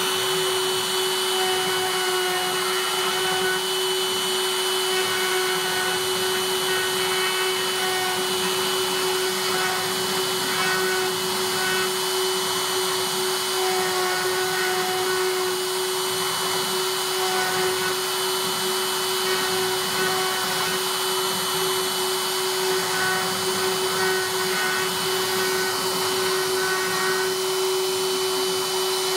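Piranha desktop CNC router V-carving letters into a wooden board: the router motor runs with a steady whine over the noise of the bit cutting, while short higher tones come and go as the machine moves the bit between strokes.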